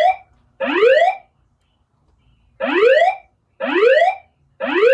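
A fire alarm voice-evacuation system's rising whoop alert tone played over its speakers. Each sweep rises in pitch for under a second, and the sweeps come in threes with a short pause between groups. This is the alert signal that leads into a recorded fire evacuation message.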